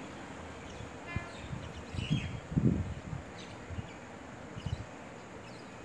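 Outdoor ambience: wind buffeting the microphone in low, uneven gusts, with a few faint bird chirps.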